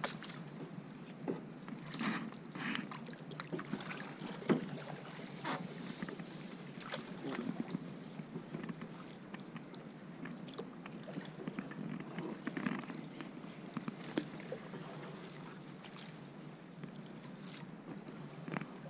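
Paddle strokes splashing and swishing in the water beside a small boat, an irregular dip and splash every second or two over a steady low wash.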